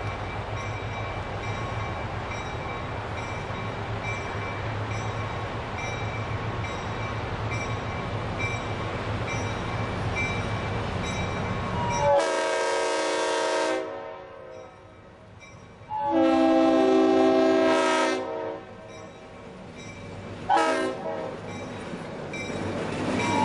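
EMD SW1200 switcher locomotive (12-cylinder EMD 567 diesel) approaching, its engine and wheels rumbling steadily. About halfway through its multi-tone air horn sounds two long blasts, then a short one, and near the end starts a further long one: the long-long-short-long grade-crossing signal.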